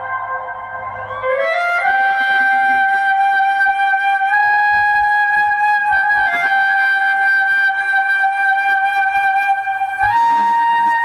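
Music through a loudspeaker sound system: a flute-like lead holds long notes, stepping up in pitch about two seconds in and again near the end.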